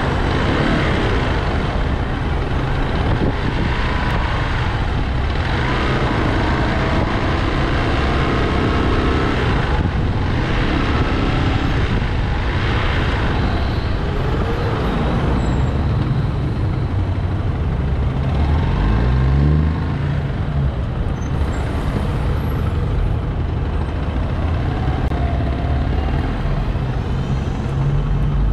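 Vehicle engines running in heavy city traffic, with steady road and wind noise; an engine revs up briefly about two-thirds of the way through.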